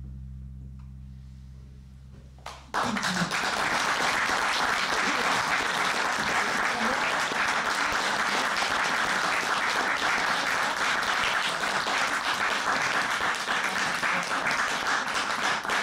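A live band's last low chord ringing out and fading, then audience applause breaking out suddenly about three seconds in and going on steadily.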